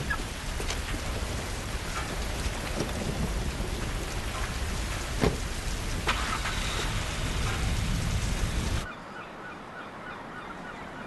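Rain falling with a deep steady rumble beneath it and scattered sharp drop ticks. About nine seconds in it cuts off abruptly to a quieter scene in which a bird calls in quick repeated notes.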